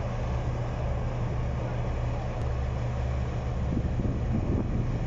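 Diesel engine of a Komatsu crawler pipelayer running steadily, a low rumble, while it holds a steel bridge girder on its side boom.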